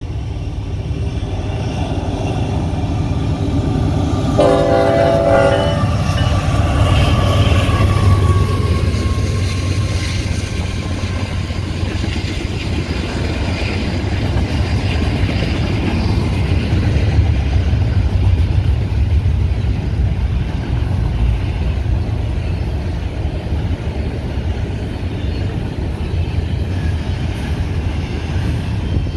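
Union Pacific diesel locomotives hauling a double-stack intermodal train past, with one short horn blast about four seconds in. After the horn comes the steady low rumble of the container well cars rolling by.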